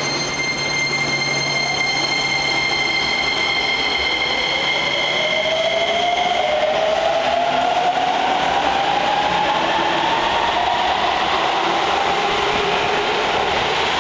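Hokuso Railway 7500 series electric train pulling away and accelerating. Its traction inverter gives a steady high whine for the first six seconds or so, then a whine that rises steadily in pitch as the train gathers speed, over a constant rumble of wheels on rail.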